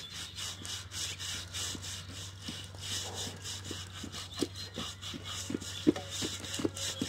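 A pig carcass being scraped by hand, about three rasping strokes a second, with sharper knocks in the second half.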